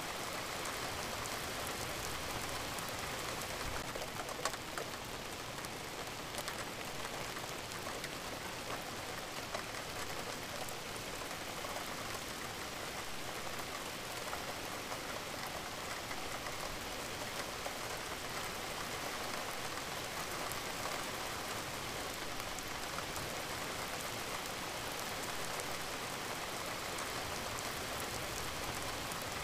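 Steady rain falling, a dense patter of drops with the odd sharper drop, from a rain-sound track added over the recording.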